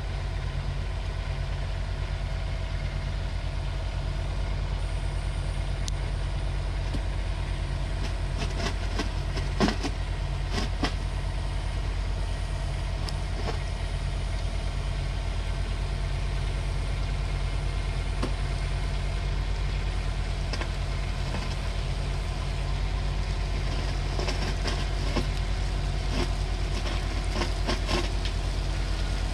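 Kubota U10 mini excavator's diesel engine running steadily, with scattered sharp knocks as the machine is manoeuvred, the loudest about ten seconds in and several more near the end.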